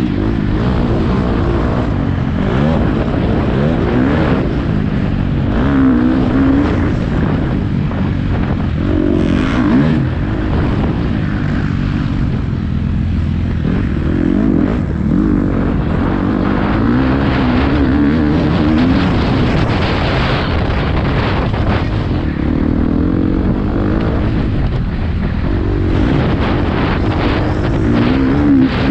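Motocross motorcycle engines racing, revving up and falling back again and again as the throttle is opened and shut.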